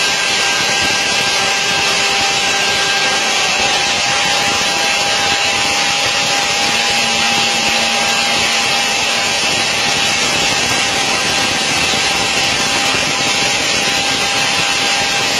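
Steady, loud whine and rush of aircraft machinery, with a constant high tone, while hydraulic power retracts a large cargo aircraft's main landing gear during a gear-swing test.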